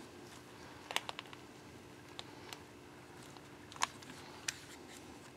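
Faint small clicks and taps from fingers working the plastic body of a Canon PowerShot ELPH 360 compact camera: a quick cluster of clicks about a second in, then a few single clicks.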